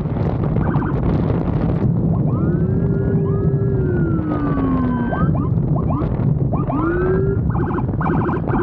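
Police escort motorcycle siren worked through several patterns: a long falling wail, short rising whoops, then a rapid pulsing yelp near the end, over steady wind and road noise from riding at speed.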